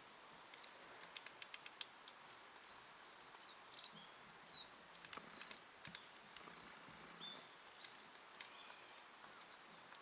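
Japanese pygmy woodpecker pecking at tree bark: a quick run of about six light taps a second or so in. Short high chirps of small birds come and go through the rest, all faint.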